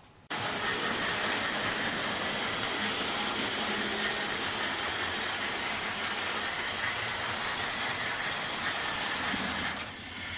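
Märklin HO-scale model train running on the layout's track: a steady rushing rattle of wheels on rails that starts abruptly just after the start and drops back shortly before the end.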